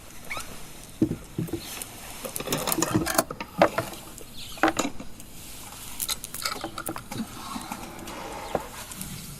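Scattered small clicks and taps with faint rustling: a small object being handled.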